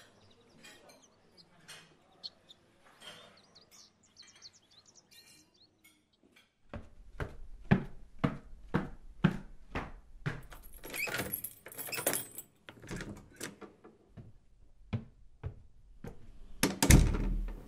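Footsteps climbing stairs, about two steps a second, followed near the end by a loud door thud. Faint bird chirps are heard before the steps begin.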